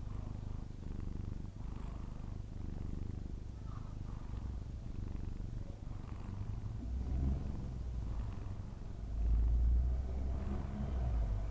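A sleeping cat snoring: a steady low rumble that grows louder about nine seconds in.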